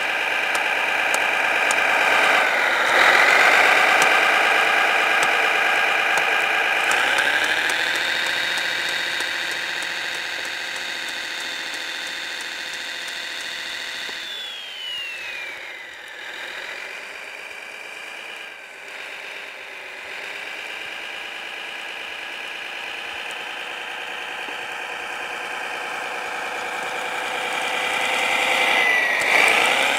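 Engine sound of a Kyosho Blizzard DF-300 RC snowcat, played by its Servonaut SMX sound module: it revs up a few seconds in, holds a high steady note, drops back toward idle around the middle, and climbs again near the end.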